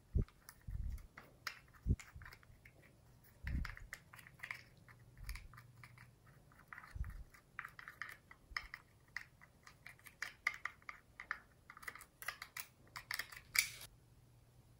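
Pink plastic spatula scraping and tapping crumbled eyeshadow out of a plastic compact: rapid small clicks and scratches, with a few dull knocks in the first few seconds and the densest, loudest clicking shortly before the end.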